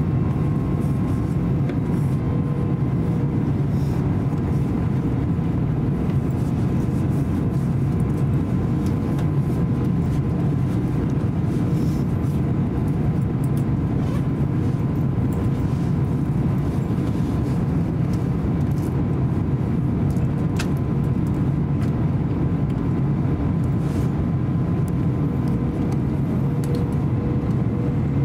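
Steady cabin noise inside an Airbus A350-900 in descent: an even rumble of its Rolls-Royce Trent XWB engines and airflow over the fuselage, with a faint steady hum on top.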